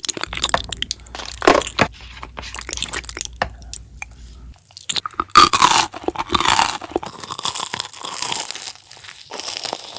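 Close-up ASMR crunching and crackling, with dense small crackles that change about halfway through to a few louder, squishier crunches.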